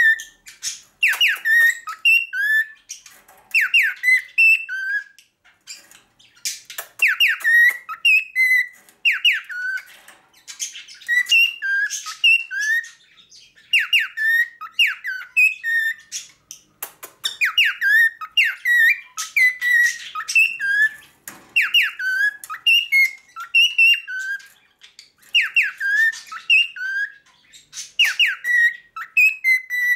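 Male cockatiel singing its whistled song: repeated phrases of short rising and falling whistles, broken every few seconds by brief pauses.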